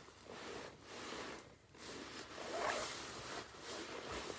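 Rustling and rubbing of a down parka's nylon shell as the wearer moves and handles it, in irregular bursts with a short lull about a second and a half in.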